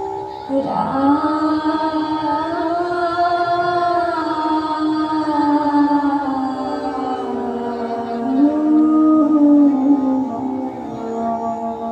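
Borgeet, Assamese devotional song: a woman's voice enters about half a second in and sings long, slowly bending held notes over a steady instrumental drone.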